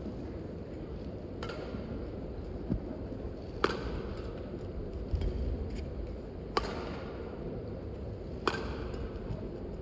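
Badminton rackets striking a shuttlecock in a rally: about five sharp hits one and a half to two seconds apart, each with a short ringing ping from the strings, over the low hum of the hall.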